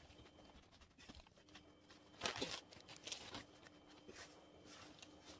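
Faint rustling of paper pet bedding and hay being spread by hand, with a few brief scuffs between about two and three and a half seconds in.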